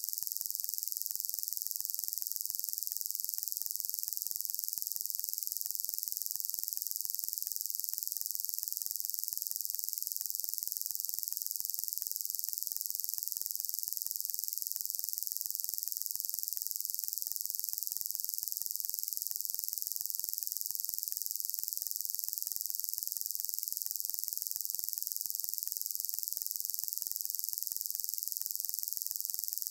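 Steady high-pitched hiss and nothing else, with no change through the whole stretch: no drilling or machine sound can be heard.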